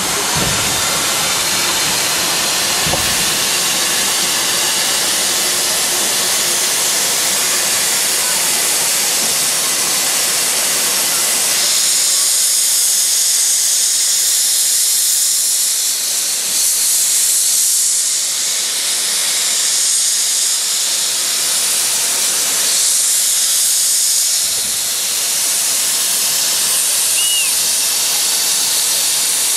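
1909 steam locomotive letting off steam: a loud, continuous hiss. About twelve seconds in the hiss turns thinner and higher and begins to pulse unevenly.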